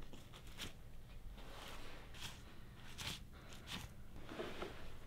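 Faint, irregular short scrapes and rustles as a knife cuts the hide away from a hanging wild hog carcass while the skin is pulled down, over a low steady hum.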